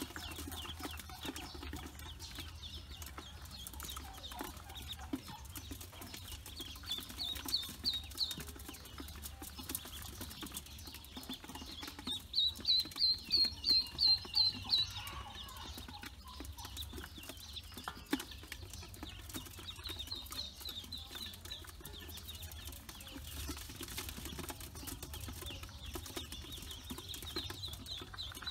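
Newly hatched ducklings peeping continuously, high and thin. About halfway through comes a quick run of roughly nine loud peeps, and shorter runs of peeps come later.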